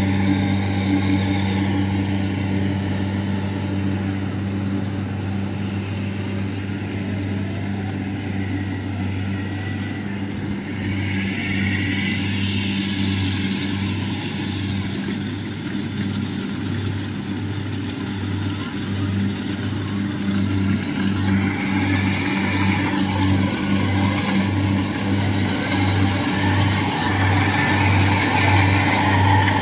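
Kubota DC-70 rice combine harvester's diesel engine running steadily under load while harvesting, a low even hum. About a third of the way in the hum starts to throb in a regular beat, and it grows louder near the end.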